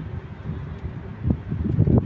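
Wind buffeting the microphone: an irregular, fluttering low rumble over the general noise of the city.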